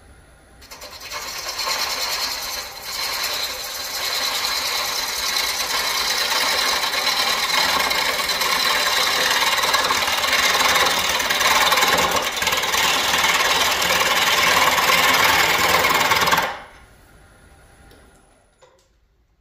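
A gouge cutting the side of an off-centre Nargusta wood scoop blank spinning on a wood lathe: a loud, steady hiss of shavings coming off. The cut is interrupted because the sides are not yet round. The hiss runs about sixteen seconds, with a brief dip near the start, and stops suddenly near the end as the tool comes off the wood.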